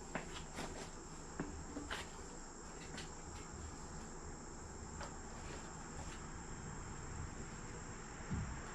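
Crickets trilling steadily in one high, even tone. A few faint clicks and light knocks come in the first few seconds and again about five seconds in.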